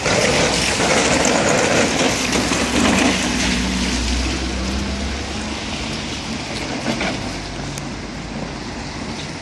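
Mobility scooter's small wheels rolling through surface water on wet tarmac, a steady hiss of spray. It is loudest in the first few seconds, then eases off a little.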